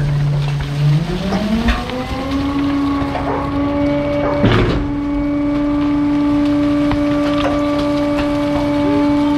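Refuse truck engine speeding up about a second in and then holding a steady, higher engine speed, as a garbage truck does to drive its hydraulic compactor. A few sharp knocks sound over it.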